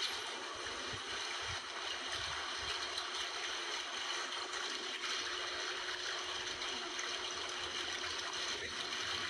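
Small waves washing and gurgling over shoreline rocks, a steady hiss of moving seawater, with a few dull low thumps in the first few seconds.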